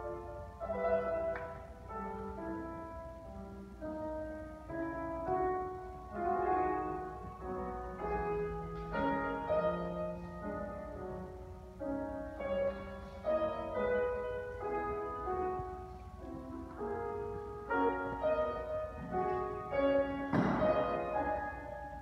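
Grand piano played solo by a child, a steady run of melody notes over chords. A short noise cuts across the playing near the end.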